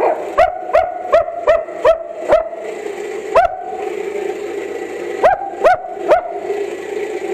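German Shepherd barking in short, sharp barks that each rise in pitch. A quick run of about seven comes in the first two and a half seconds, one more a second later, then three more near the end.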